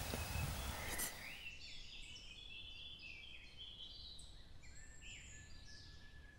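Songbirds singing, with many short, high chirps and falling whistled notes overlapping one another from about a second and a half in. Before that, a rustling noise with a couple of light clicks, which stops abruptly.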